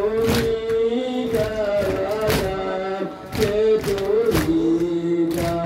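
Men chanting a Muharram nauha (lament) in unison while beating their chests (matam) in time with it, a sharp slap of the chest strikes about once a second under the held sung notes.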